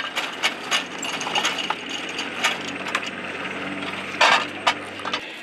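Hand-cranked ammunition loader for a helicopter cannon being wound, with irregular metallic clicks and clinks as cannon cartridges feed through it, and a sharp clack about four seconds in. A steady low hum runs underneath and stops just before the end.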